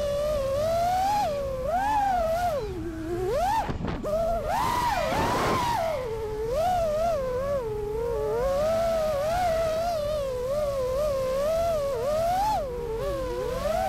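Five-inch FPV freestyle quadcopter's brushless motors and propellers whining, the pitch sliding up and down continuously with the throttle. About four seconds in, a hard throttle punch sends the pitch up with a burst of rushing air.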